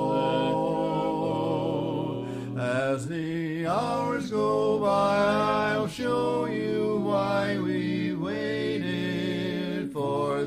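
Barbershop quartet singing a cappella in close four-part harmony, holding long chords that shift and glide between notes.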